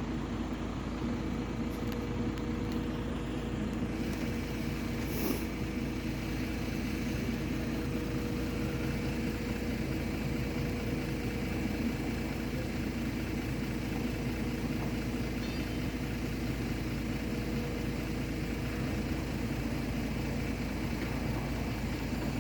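Tram running with a steady hum that carries a few low, even tones, and one short click about five seconds in.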